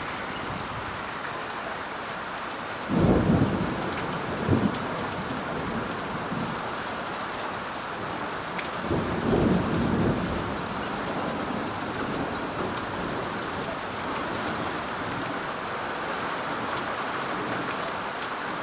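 Steady hiss of heavy rain, with low rumbles of thunder: the loudest about three seconds in, a short one a second later, and another around nine to ten seconds.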